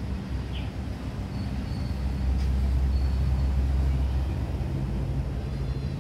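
Low, steady rumble of a motor vehicle engine, swelling about two seconds in and easing again after about four seconds.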